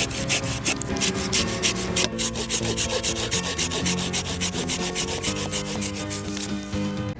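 Folding pocket hand saw cutting into wood with quick, even back-and-forth strokes, about five or six a second, stopping abruptly at the end.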